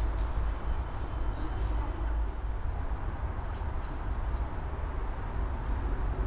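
Steady low rumble of a tram standing at a station platform amid city noise, with four short high chirps over it.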